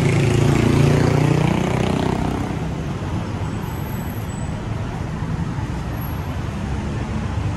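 Road traffic in a city street: a motor vehicle passes close by in the first two or three seconds, its engine pitch falling as it goes, then steady traffic noise carries on.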